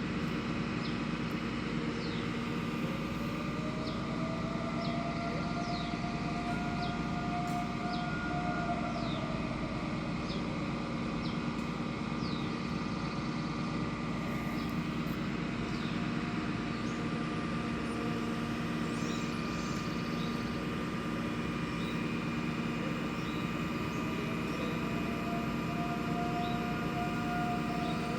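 Civil-defense air siren wailing during a test, its tone swelling up and fading away in two long, slow sweeps about 18 seconds apart, over a steady low hum.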